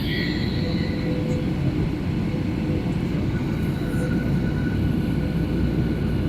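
Steady cabin noise of an airliner in flight: an even rumble of engines and airflow, with faint steady tones above it.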